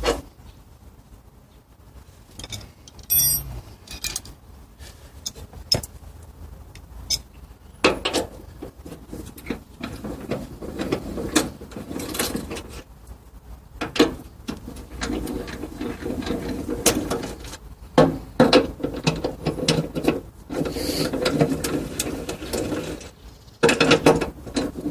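Tools and metal parts clicking and knocking irregularly while a mat-washing machine's brush roller and conveyor belt are taken apart, getting busier in the second half.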